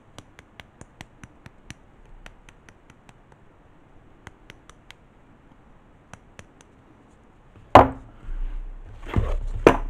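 Hand-twisted pepper mill grinding pepper: a run of quick dry clicks, about five a second, in three short spells. A loud knock follows about eight seconds in, then handling noise and another sharp knock near the end.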